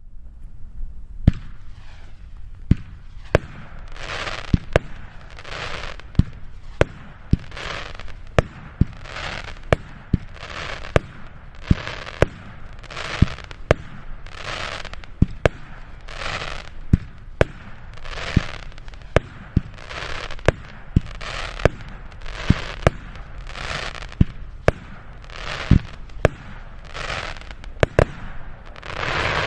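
Weco "High Voltage" 19-shot firework battery going off: a steady series of sharp bangs less than a second apart, each followed by a short hissing burst, with the loudest burst near the end.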